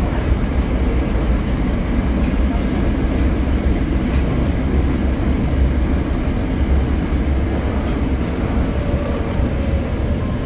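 Tokyo Metro 02 series subway train running through a tunnel, heard on board: a steady low rumble with wheel and track noise. Near the end a faint falling whine begins.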